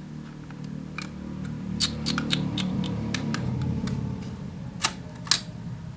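Sharp plastic clicks from a speedlight camera flash being handled: a quick run of about a dozen in the middle and two louder clicks near the end, over a low steady hum.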